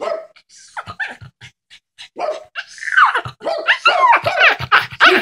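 Small dog whining and yipping in quick, high, rising and falling squeals. They get louder and come thick and fast from about two seconds in. The dog is excited for a treat and is being coaxed to bark on command.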